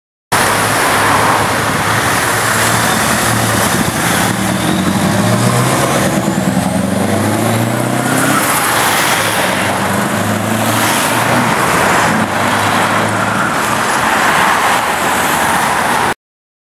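Scania R500 truck's V8 diesel engine pulling away from a standstill at a traffic light. Its note climbs and drops back several times as it shifts up through the gears.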